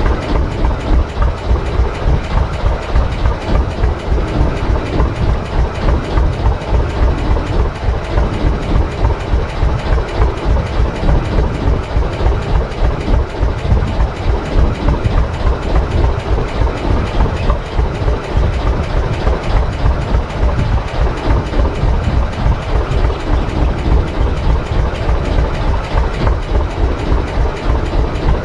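Fishing boat's inboard engine running steadily under way, a rapid, even low thumping with the rush of the hull through the water.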